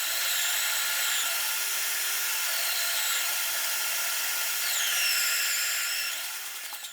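Homemade disc sander driven by an electric drill, its sandpaper grinding against a wooden piece with a steady hiss; a faint whine from the drill shifts and dips in pitch as the wood is pressed to the disc. The sound fades away near the end.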